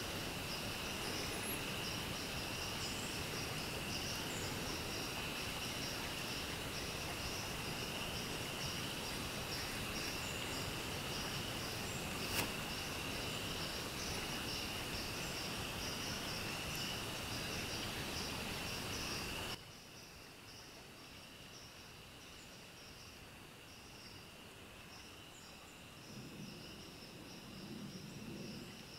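A steady, high insect chorus trills over a background hiss. A single sharp click comes about twelve seconds in. About two-thirds of the way through, the whole sound drops suddenly in level, and faint low rustling comes in near the end.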